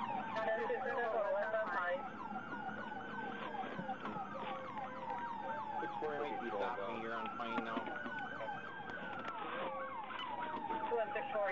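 Police car sirens during a pursuit: one slow wail that rises and falls in pitch over a few seconds at a time, overlaid by a second, fast yelping siren that sweeps several times a second.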